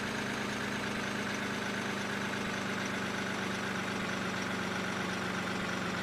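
Steady, even mechanical hum with one constant low tone, like an idling motor.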